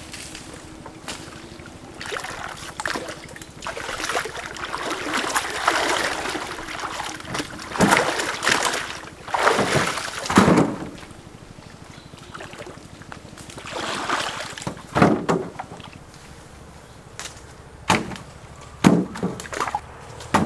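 Water sloshing and splashing in irregular surges, followed by a few sharp knocks near the end.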